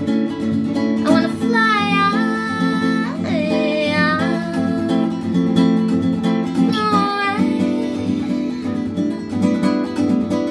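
A woman singing to her own acoustic guitar, strumming chords steadily. Her voice comes in short sung phrases, with stretches between them where only the guitar is heard.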